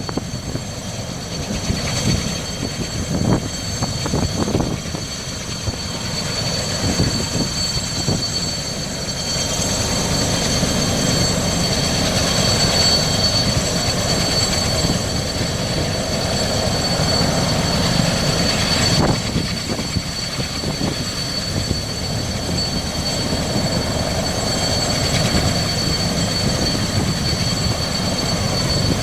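Large helicopter's turbine engines and rotor running, a steady high whine over a rumbling roar that grows louder about ten seconds in.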